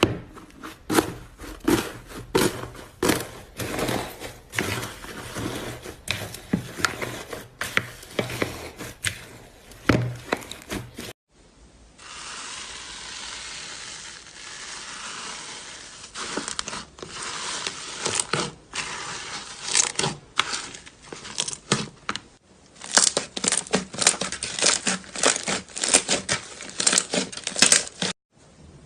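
Slime being pressed and squished by hand, with rapid crackling and popping of trapped air. About eleven seconds in it cuts to a softer, steady rustling squish, and the crackling picks up again partway through.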